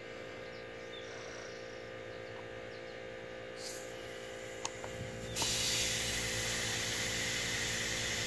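Small portable air compressor running with a steady hum. About five seconds in, a loud steady hiss of air starts as the inflation needle feeds air through the Big Blast target cap into a 2-liter plastic bottle, with a little air leaking out around the needle. A few light clicks from handling the needle and cap.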